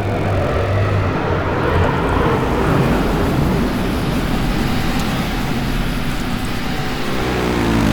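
AI-generated sound effect of a futuristic flying vehicle: a steady engine rumble with a whooshing hiss, and a pitch that drops near the end as it passes.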